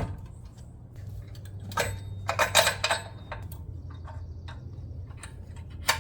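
Metallic clinks and rattles of a locking hitch pin being pushed through a steel hitch receiver and latched, a quick cluster of taps about two to three seconds in and one more sharp click near the end.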